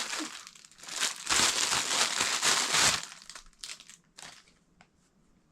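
Parcel packaging crinkling and rustling as it is handled and opened by hand: a dense stretch of crinkling, then a few lighter crinkles before it goes quiet.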